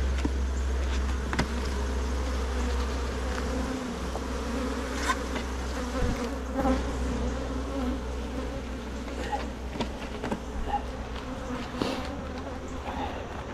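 Many honeybees buzzing around an open hive, their wavering drone rising and falling, with occasional sharp clicks and knocks scattered through it.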